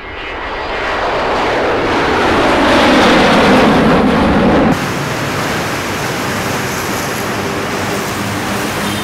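Jet airliner fly-past, a loud rushing noise that swells over the first few seconds and then cuts off abruptly about halfway through, giving way to a steady, lower background hum.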